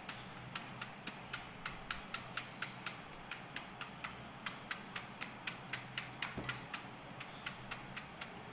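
Knife chopping into a peeled elephant foot yam stem held in the hand: short, even strokes, each a sharp click, about four a second.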